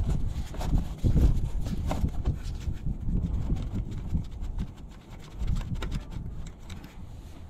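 Hand screwdriver backing out the security Torx screws of a mass airflow sensor: a run of small, irregular clicks and scrapes of the bit and screws over a low rumble.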